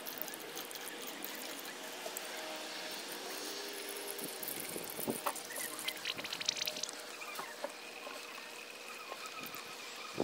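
Premixed 50/50 antifreeze coolant pouring in a steady trickle from a plastic jug into a truck's coolant filler neck, topping off the cooling system after a thermostat replacement. A few sharp clicks come about halfway through.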